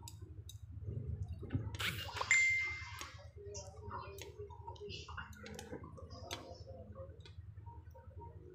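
Tableware clinking: one sharp clink about two seconds in that rings briefly and dies away, then small scattered clicks and scrapes of a spoon against a plate, over a steady low hum.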